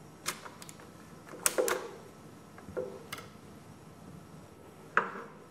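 Magazine release of an MKb 42H rifle pressed and its 30-round magazine pulled out of the magazine well: a handful of sharp metallic clicks and clacks, the loudest about a second and a half in.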